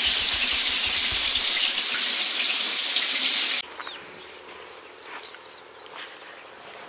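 Water from a shower spraying onto tiles, a loud steady hiss that cuts off suddenly after about three and a half seconds. A quiet outdoor background with a few faint bird chirps follows.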